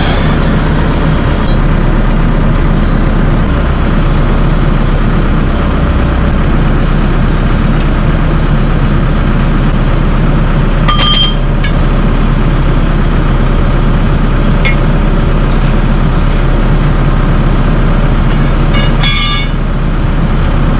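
Kubota SVL75 compact track loader's diesel engine running steadily, with two sharp metallic clanks, one about halfway through and one near the end.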